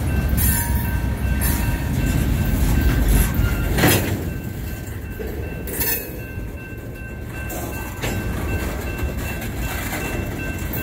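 Freight cars rolling slowly across a road grade crossing: a low rumble of wheels on rail, with sharp clanks every couple of seconds as wheels strike the crossing. The loudest clank comes about four seconds in, and the rumble eases after it. The crossing bell rings steadily underneath.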